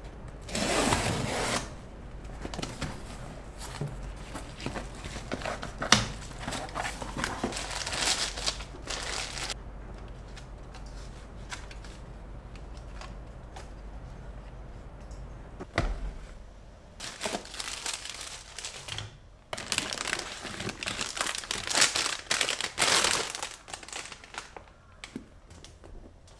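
Cardboard box being opened: a box cutter slicing through packing tape and the flaps rustling. Later, packaging crinkles and rustles in bursts as items are unpacked.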